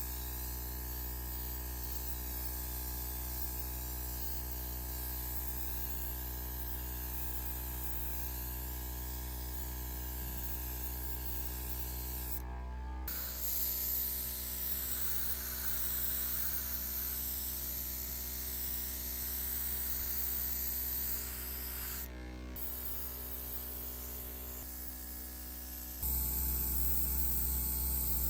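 A steady machine hum with a hiss of air or spray over it, running without change in pitch. It cuts out briefly twice and comes back louder near the end.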